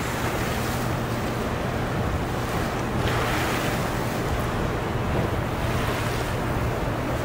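Water rushing steadily through the open spillway gates of Conowingo Dam, a hydroelectric dam, with a low hum underneath.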